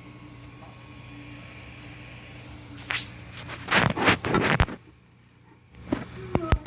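Stepper motor on a DIY Prusa i3 3D printer failing to spin because of a broken wire. A steady electrical hum gives way, about three seconds in, to nearly two seconds of loud rattling and grinding as the motor jerks instead of turning. Near the end come a few sharp clicks.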